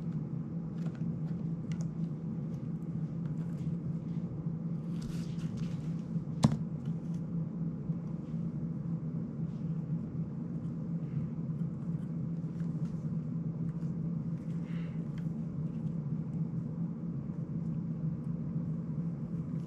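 Steady low hum, with scattered light clicks and rustles of fingers handling the plastic frame and parts of a small FPV drone, and one sharp click about six and a half seconds in.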